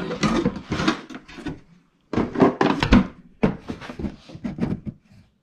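Knocking and clattering of tools and parts being handled on a workbench, in three bursts of quick knocks with short gaps between them.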